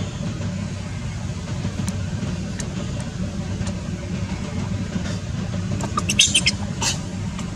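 A steady low hum like a motor running throughout, and about six seconds in a quick cluster of short, high-pitched squeaks from the infant macaque fussing at its mother's chest to nurse.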